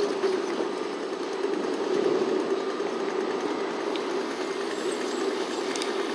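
Steady drone of distant city traffic, a continuous mid-pitched hum with a couple of faint ticks.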